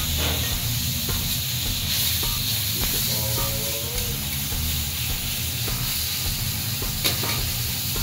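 Cubed beef sizzling on a hot flat-top griddle in bacon fat: a steady hiss over a low hum. A metal spatula scrapes and taps on the griddle a few times as the meat is spread out.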